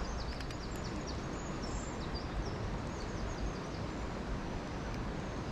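Steady rush of water pouring over a river weir, with small birds chirping in short high calls throughout.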